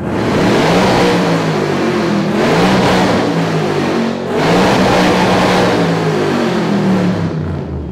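Performance car's engine revved hard at a standstill through a much-modified aftermarket exhaust: two long, loud revs, held high and wavering, with a short drop about four seconds in.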